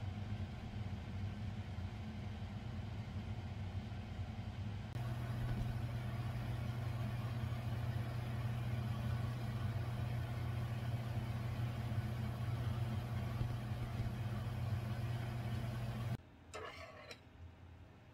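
Steady low mechanical hum that gets louder about five seconds in and cuts off suddenly near the end, followed by a few faint clinks.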